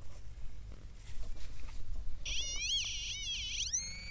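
Metal detector sounding on a target: a high warbling tone that swings up and down in pitch for about two seconds, starting halfway through.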